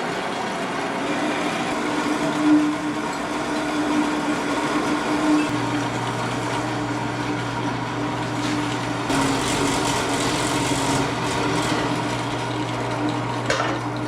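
Wet saw's electric motor running steadily, with a harsher grinding stretch in the middle as it cuts through a steel rod.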